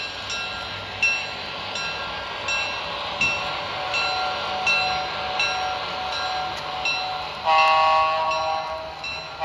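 Model train sound: a bell ringing steadily, about three strokes every two seconds, then near the end a loud chord of several notes from a train horn blowing for about a second and a half.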